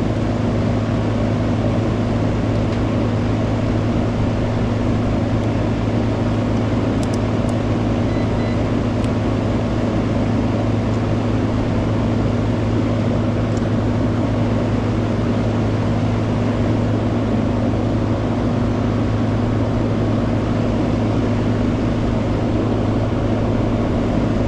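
Outdoor condensing unit of an older central air conditioner running steadily: a deep electrical hum from the compressor under the whoosh of the condenser fan, with a few faint ticks. Both the compressor and the fan motor are running normally.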